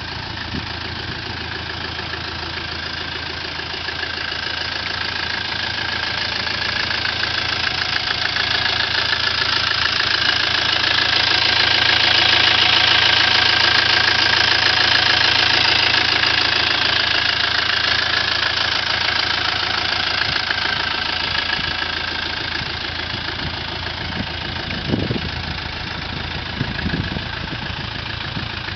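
Land Rover Defender's 2.5-litre turbo diesel engine idling steadily. It grows louder in the middle, heard close up at the open engine bay, then eases off again. Two brief thumps come near the end.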